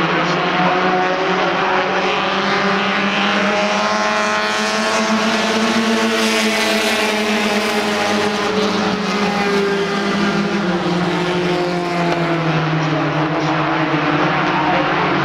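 Several front-wheel-drive four-cylinder race cars running hard around an oval track, their engines overlapping. The engine notes rise and fall as cars pass and move around the track.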